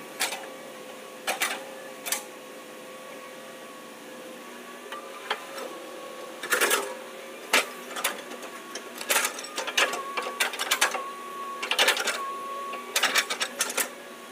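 Hitachi hydraulic crawler excavator at work, running with a steady whine while its bucket digs mud. Sharp knocks and clanks come a few at a time early on, then thick and fast over the second half.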